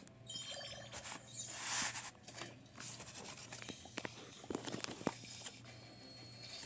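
Paper cutout figures being handled and shuffled over carpet: rustling paper with scattered light taps and clicks, and a louder rustle about a second and a half in.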